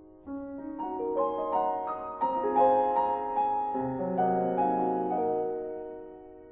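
Background instrumental music: sustained notes come in one after another and ring together, building to a peak about two and a half seconds in, then fading away toward the end.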